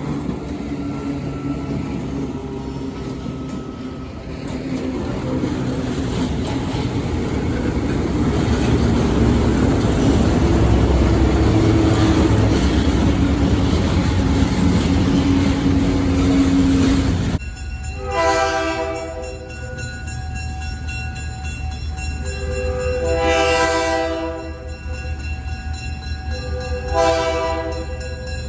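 A passing train sounding its air horn over the rumble of the train. About 17 seconds in, the sound switches abruptly to a sustained multi-note train horn chord that swells louder three times.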